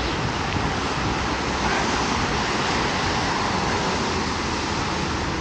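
Traffic on a wet city street: a steady hiss of car tyres on rain-soaked asphalt.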